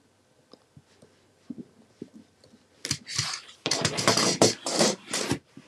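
A few faint ticks as a piercer is worked through a chipboard cover. Then, about three seconds in, a run of scraping and rattling lasting two to three seconds as the metal A5 six-ring binder mechanism is lifted and slid across the cover.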